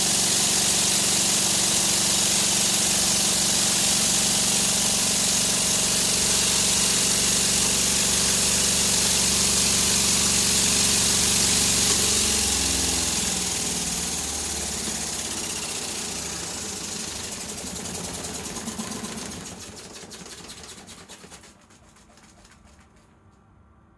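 Small two-tub washing machine running with a steady motor hum. About halfway through it is switched off: the pitch falls and the sound fades away as the tub coasts to a stop.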